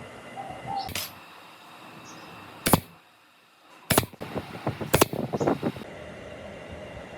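A pigeon coos briefly at the start, then come a few sharp knocks of work on a hard object: one about two and a half seconds in, two more about a second apart near the middle, and a quick run of lighter taps after the last.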